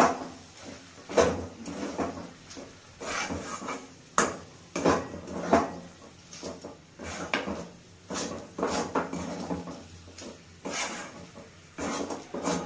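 Metal spatula scraping and knocking against a metal pan as a thick vegetable mash is stirred, in irregular strokes about once or twice a second.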